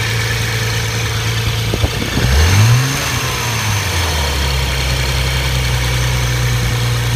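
Nissan 300ZX's V6 engine idling after a cold start, with a brief rev about two seconds in that rises and falls back before it settles to idle again.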